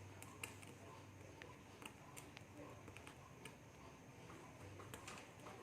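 Near silence: faint room tone with a few light, scattered clicks.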